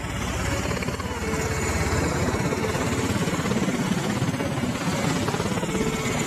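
V-22 Osprey tiltrotor in helicopter mode, its two proprotors making a loud, fast, steady rotor beat as it hovers low and descends onto a ship's flight deck.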